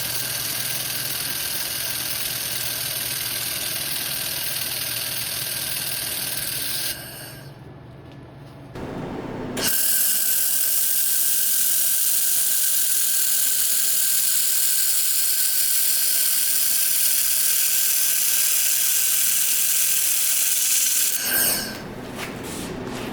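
Handheld fiber laser welder (Jet 2000) welding steel: a steady hissing sizzle that drops away about seven seconds in. It comes back louder and brighter for about eleven seconds, then cuts down again near the end.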